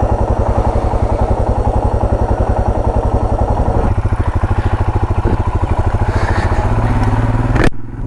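Royal Enfield Himalayan's single-cylinder engine running at low revs with an even, rhythmic thump as the motorcycle rolls slowly; the sound drops away abruptly near the end.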